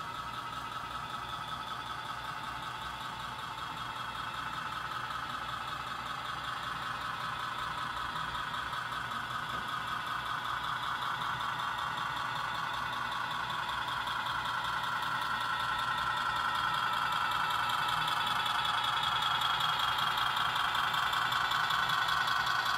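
Model Kansas City Southern ES44 locomotive and its covered hopper cars running along the layout track. It makes a steady mechanical hum with a fine rapid pulse that grows louder as the train comes close and passes.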